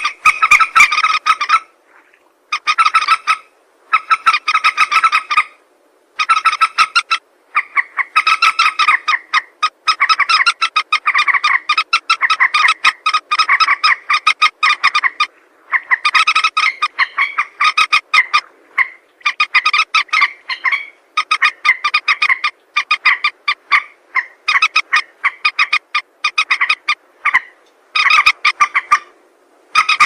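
Common moorhen calling: fast runs of short, clicking notes, repeated in bursts of one to several seconds with short silent gaps between them. It is a recording of the call played as a hunting lure.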